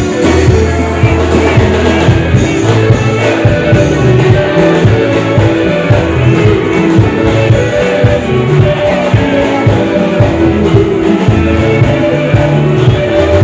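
Loud live band music through a PA system, with guitars prominent.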